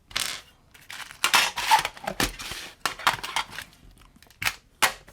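Small metal hardware being handled and rummaged through: an irregular run of short rustles, clicks and light clinks.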